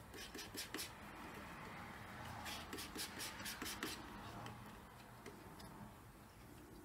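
A colour stick scratching over a gritty gessoed panel textured with sand, in short scrubbing strokes: a few in the first second, then a quicker run about two and a half to four seconds in.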